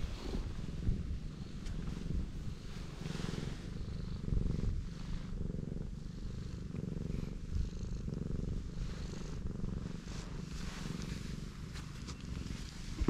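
Cat purring steadily in even low pulses while being stroked, with a soft rustle of a hand moving over its fur.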